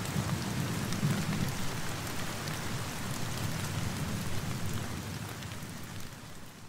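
Steady rain falling, many small drop patters over a low rumbling underneath. It fades out near the end.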